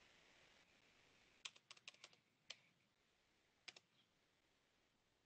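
Faint clicking of keys on a computer keyboard as numbers are typed in: a quick run of taps about a second and a half in, then two more near the four-second mark.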